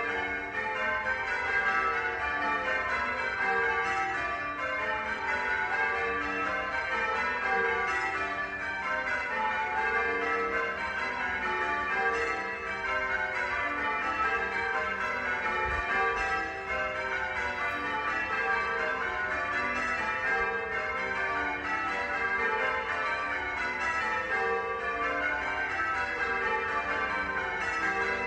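Church bells pealing: a set of tuned bells struck one after another in quick, unbroken succession, each note ringing on under the next.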